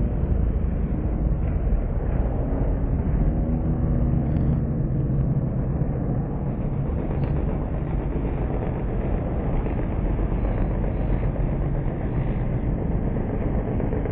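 Banger racing cars' engines running together on the track, a steady dense engine noise with revs rising and falling in the first few seconds.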